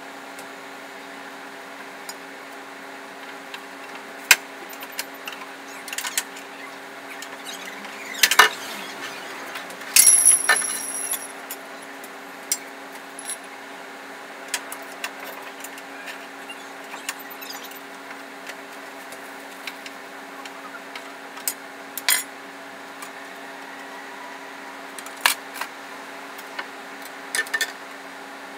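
Scattered metallic clinks and clanks of hand tools against engine parts, about half a dozen sharp ones, the loudest about ten seconds in with a short ringing tail, over a steady hum.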